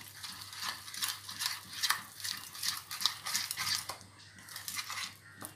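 Fingers kneading a thick, freshly watered gram-flour and rice-flour batter paste in a plastic bowl: a quick run of short wet mixing strokes, several a second.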